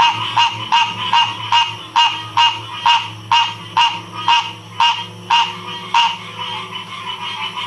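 Frog chorus: one frog calls in a quick even rhythm, about two to three sharp calls a second, over a steady background chorus. It stops about six seconds in, leaving only the background.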